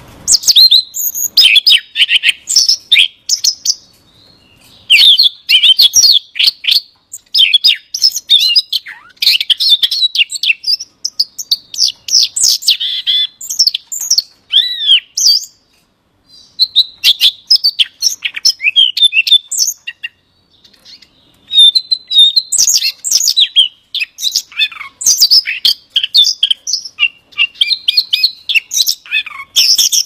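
Male Siberian rubythroat singing: long, high-pitched phrases of rapid, varied warbling and twittering notes, broken by short pauses of a second or so.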